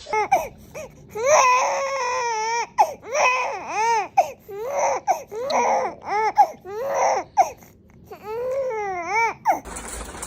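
A baby crying in a run of high wails, each rising and then falling in pitch, ending in one longer falling wail that breaks off near the end.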